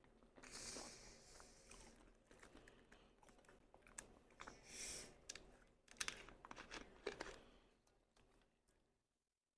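A person chewing and crunching food close to the microphone, with a few sharp crisp bites, faint and dying away near the end.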